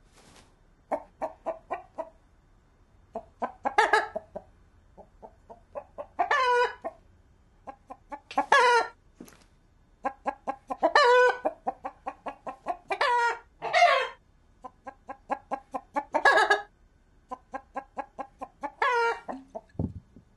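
Rooster clucking in quick runs of short clucks, about four or five a second, broken every couple of seconds by a louder, longer call, about eight of them in all.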